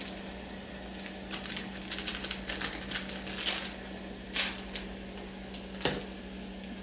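A small plastic spice bag crinkling as it is shaken over a pan and then handled and folded shut, in scattered irregular rustles and clicks. A steady low hum runs underneath.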